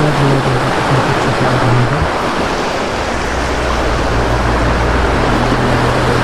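A shallow mountain stream rushing over rocks, making a steady, loud, even rush of water, with a faint low hum underneath.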